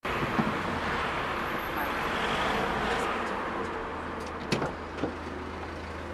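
Steady engine and road noise of a taxi heard from inside the cabin, easing off a little after about three seconds, with two short knocks late on.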